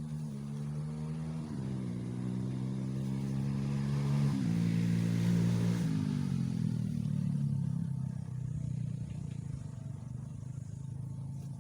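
A motor vehicle engine passes by, its pitch shifting in steps, loudest about halfway through and then fading away.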